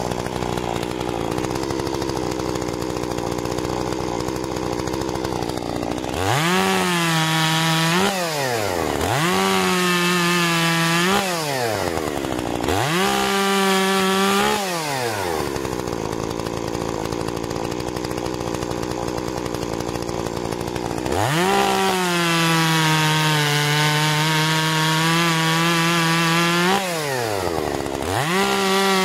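Solo 6651 two-stroke chainsaw cutting firewood logs: stretches of rough, noisy sawing alternate with the engine being revved up and down several times, and for several seconds late on it is held at a steady high rev.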